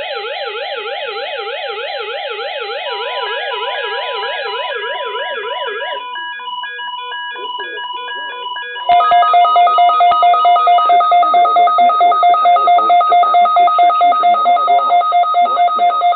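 Several weather radios sounding their alert alarms at once, the signal of an incoming Emergency Alert System Child Abduction Emergency. For the first six seconds a fast warbling siren tone plays under electronic beeping. From about nine seconds in, a louder alarm takes over, a rapidly pulsing pair of steady tones.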